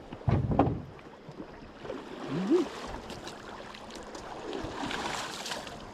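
River water moving and sloshing against a small fishing boat, with a short loud burst about half a second in and a brief rising vocal sound about two and a half seconds in.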